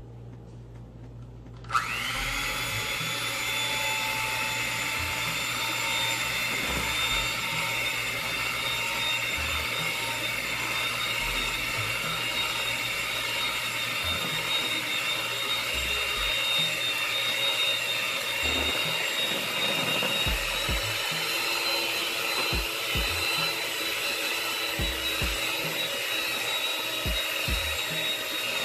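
Proctor Silex electric hand mixer switched on with a click about two seconds in, its motor spinning up and then running with a steady whine as the beaters mix cake batter.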